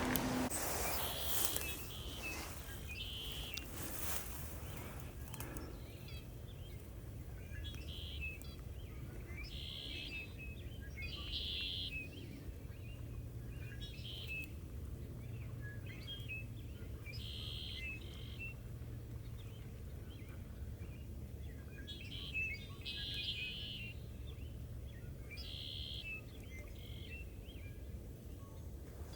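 Small songbird calling: short, high chips and brief trills repeated every second or two, over a steady low background rumble.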